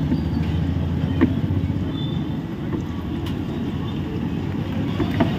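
Battered snacks deep-frying in a wok of hot oil, over a steady low background rumble, with two short clicks, one about a second in and one near the end.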